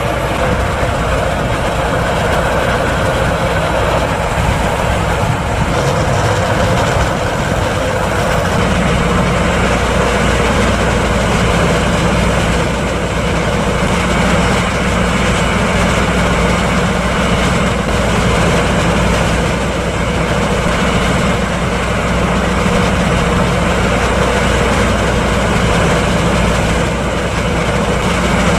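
John Deere 7290R tractor running steadily under load, driving a Stade corn mill that is grinding corn cob mix. A continuous low engine hum with dense grinding noise over it.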